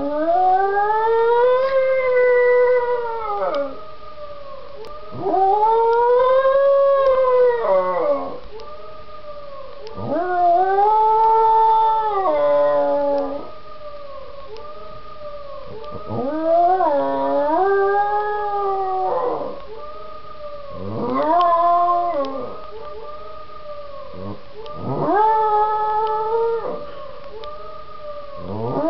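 Small dog howling: six long howls, each about two to three seconds, rising in pitch, holding, then falling away, with pauses of a few seconds between them.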